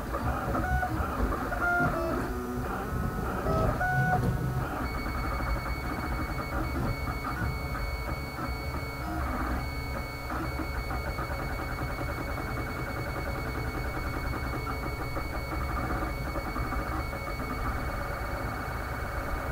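Stepper motors of a wooden-framed 3D printer whining in short notes of shifting pitch as the print head moves while printing, over a low mechanical rumble. A steady high whine joins in about five seconds in.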